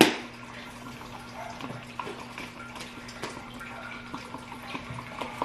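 Hands kneading and patting soft fluffy slime, with small wet squishes and ticks, over a steady low electrical hum.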